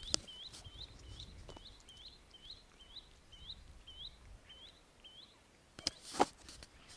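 A bird calling one short, high, hooked note over and over, about two to three times a second, slowing slightly before it stops about five seconds in. Near the end come a couple of sharp knocks.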